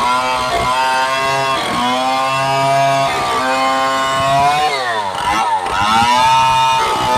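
Large STIHL 070 two-stroke chainsaw running hard, its engine pitch dipping and recovering again and again as it bogs under load, with a deep drop and pick-up about five seconds in. It is ripping a log lengthwise.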